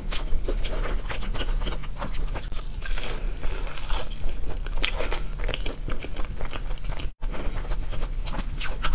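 Close-miked bites and chewing of a flaky-crusted pastry tart, with many small crisp crackles as the layered crust breaks, over a faint steady low hum. The sound cuts out for an instant about seven seconds in.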